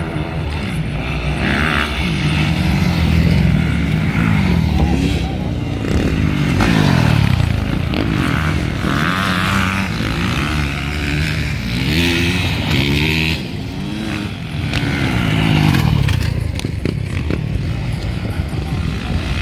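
Motocross dirt-bike engines revving hard, their pitch rising and falling again and again with throttle and gear changes.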